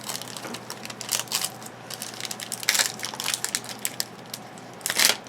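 Trading-card pack wrappers crinkling and tearing as packs are opened by hand, in irregular crackling bursts, the loudest near the end.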